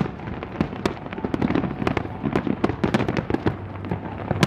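Fireworks going off: a dense, continuous string of sharp bangs and crackles.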